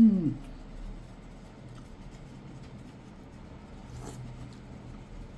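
A man eating soup with a spoon: a short hummed "mmm" that rises and falls right at the start, then quiet, with faint scattered clicks and a brief sharp click about four seconds in as he takes a spoonful.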